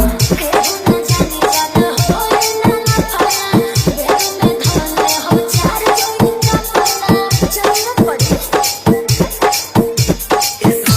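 Music: a fast, even beat of drum strokes with short falling pitch sweeps under a repeating held melody.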